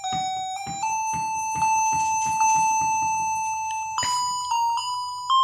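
Electronic lullaby tune from the battery sound module of a My Sweet Baby Lullaby Cradle, a toy doll's cradle, set playing by rocking it. Simple beeping single notes, one held for about three seconds, then a run of shorter notes.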